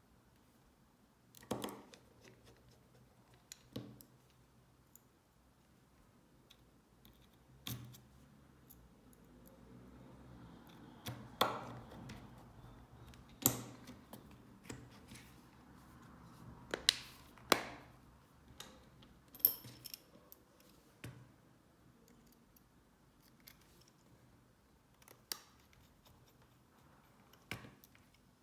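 Scattered small clicks and taps, about a dozen spaced irregularly, from small tools and phone parts being handled while an iPhone 6 is closed back up after a screen replacement.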